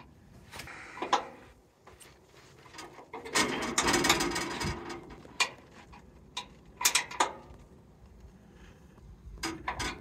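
A wrench turning the drive-belt tensioner bolts on a sawmill: scattered metal clicks and knocks as the wrench works and is reset on the bolts, with a louder, longer noisy stretch about three to five seconds in. The bolts are being tightened to take up a loose, slipping drive belt.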